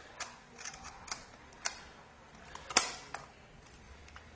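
Irregular small clicks and taps as a part is being worked off a wind-up alarm clock during its teardown, the loudest a little under three seconds in.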